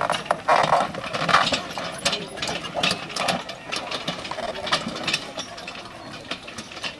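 A wooden farm wagon drawn by a pair of horses rattles and clatters with knocks of harness and running gear, growing fainter as it pulls away.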